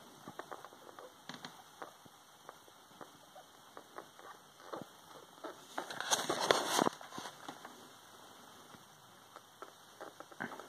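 Pet rat moving and sniffing about a hand in a wire cage: scattered light ticks and scratches, with a louder rustling scrape lasting about a second, some six seconds in.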